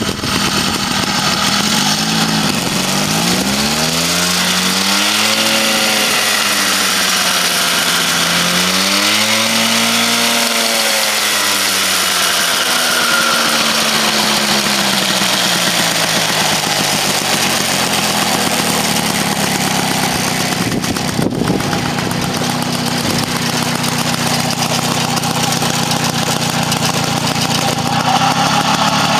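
Motobécane Mobylette AV89's small single-cylinder two-stroke engine revved twice, its pitch rising and falling each time, then settling to a steady idle. It is running smoothly on a Nova-type electronic ignition unit.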